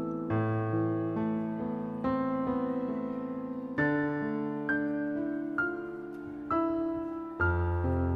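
Background piano music: slow, gentle notes and chords struck about once a second, each fading before the next.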